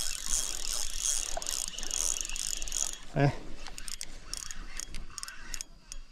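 Spinning reel being cranked fast, its gears giving a rapid ticking rattle, as a small hooked bass is reeled in. A brief voice sound, the loudest moment, about three seconds in.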